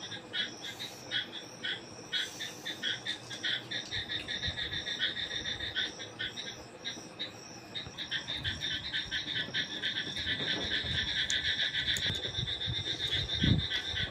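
Night chorus of frogs and insects: a shrill, rapidly pulsing trilling that grows denser and more continuous about halfway through. A low thump near the end.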